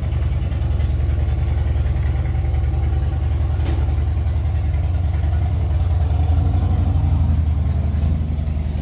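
An engine running steadily at idle, a low, even, rapid beat with no change in speed.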